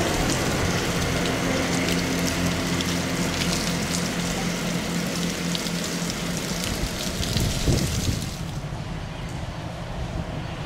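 Class 158 diesel multiple unit's engines running steadily as the train pulls away and slowly fades into the distance, with rain falling on the station. About eight seconds in the sound drops abruptly to a quieter windy hush.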